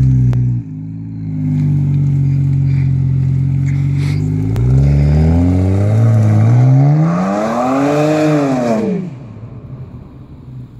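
BMW 535i's twin-turbo straight-six through a custom Proven Power exhaust, pulling away at low revs, then accelerating hard from about halfway in. The exhaust note climbs steadily in pitch, drops away near the end and fades as the car drives off.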